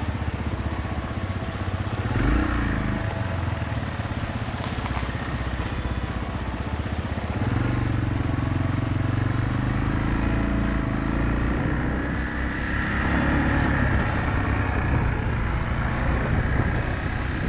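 Yamaha TW225's single-cylinder four-stroke engine running, its note rising and falling as the throttle opens and eases, louder from about halfway through.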